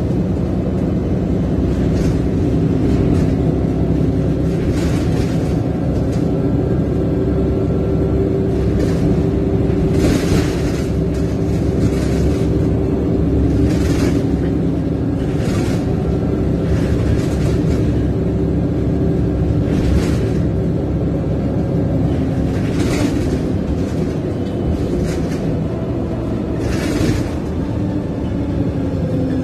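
VDL DB300 double-decker bus heard from the upper deck while under way: a steady diesel engine drone with repeated knocks and rattles from the body and fittings. Near the end the engine note falls in pitch.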